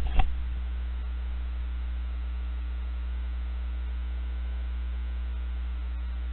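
A single click just after the start, then a steady low electrical mains hum.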